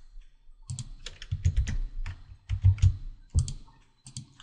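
Typing on a computer keyboard: a run of irregular keystrokes, each with a dull thud, after a short pause.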